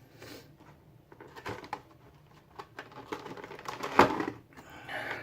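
Cardboard and plastic packaging of a Pokémon card collection box being handled: scattered clicks and crinkling, with one sharper knock about four seconds in.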